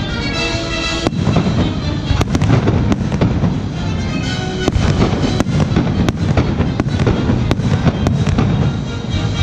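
Fireworks display: aerial shells bursting one after another in a steady string of sharp bangs, over a continuous crackling rumble.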